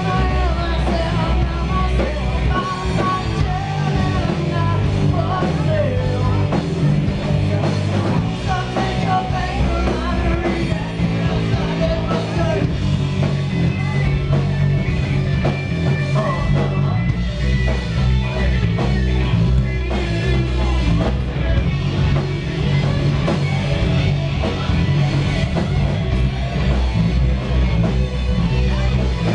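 Live rock band playing loudly: electric guitars, bass guitar and drums, with a male singer.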